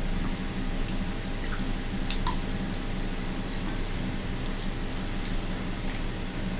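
Dal dripping and pouring from a ladle onto a plate of rice, with soft wet squishing of rice mixed by hand and a few faint clicks, over a steady background hum.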